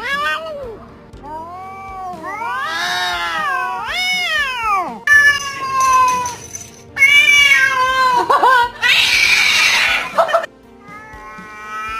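Domestic cats meowing and yowling over and over in long calls that rise and fall in pitch, with one harsh, noisy yowl near the end. Background music plays underneath.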